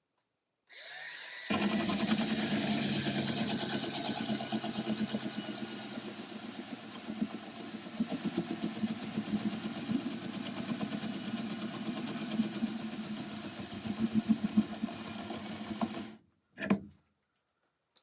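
Cordless drill boring through aluminium under load, spinning up about a second in, running steadily with a fluttering grind, then stopping suddenly, followed by one short burst of the trigger.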